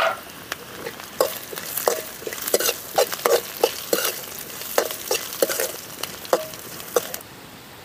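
Steel ladle scraping and knocking irregularly against an aluminium pan while stirring onions and dried red chillies frying in oil, over a steady sizzle. The sizzle weakens near the end.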